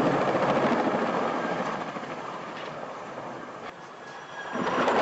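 Loud rushing, clattering noise of a helicopter crashing into snow, with rotor and engine noise mixed with wind on the microphone. It starts abruptly, eases off for a couple of seconds and swells again near the end.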